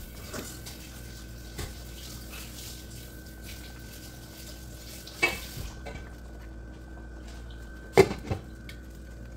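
Metal cookware clinking and knocking at the stove a few times, the loudest two knocks close together about eight seconds in, over a steady background hum.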